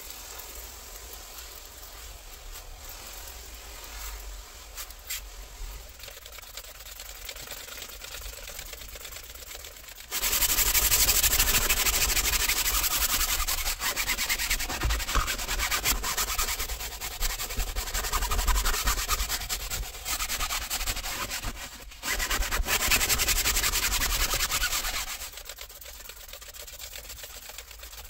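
A pump sprayer mists cleaner onto a cloth seat. About ten seconds in, a stiff brush starts scrubbing the fabric loudly and without a break. The scrubbing pauses briefly once and stops a few seconds before the end.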